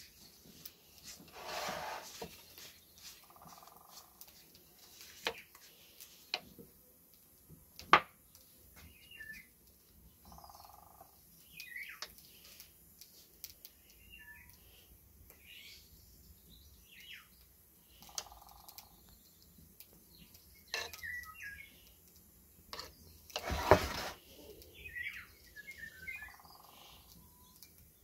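Small birds chirping in short, scattered calls, with a lower call repeating about every seven or eight seconds. A few sharp knocks and a brief louder rustle near the end stand out.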